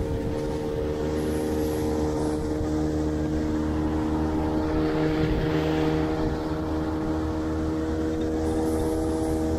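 Small outboard motor running steadily at speed, pushing an inflatable boat loaded with four people. The engine holds an even, constant pitch.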